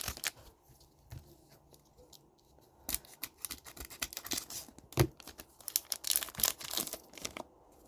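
A trading-card pack wrapper being torn open and crinkled by hand, a dense run of crackling and tearing from about three seconds in, with one sharp snap about five seconds in.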